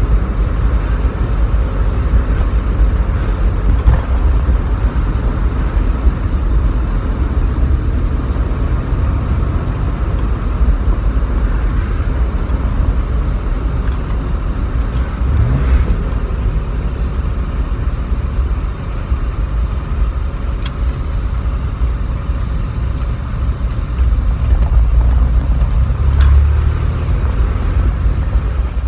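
Porsche 911 SC's air-cooled flat-six engine and road noise heard from inside the cabin while driving, a steady low rumble that grows louder near the end.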